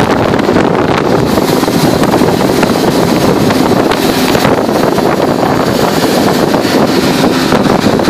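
Tracked post pile driver drilling a steel post down the hole, running loud and steady with a rapid, continuous hammering rattle over its engine.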